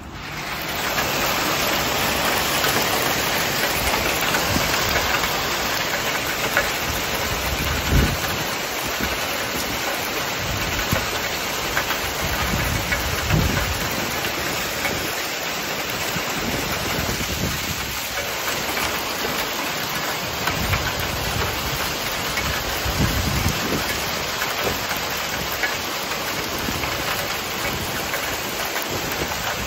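Heavy downpour of rain mixed with hail in a strong wind: a loud, dense, steady roar, with deep gusts buffeting the microphone now and then.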